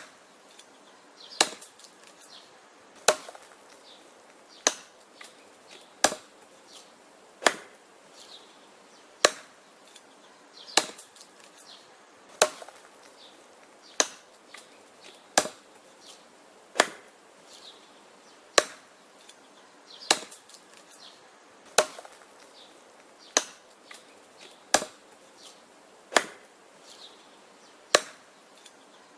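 Wood being chopped: a steady run of sharp chopping blows, about one every second and a half, with fainter knocks between them.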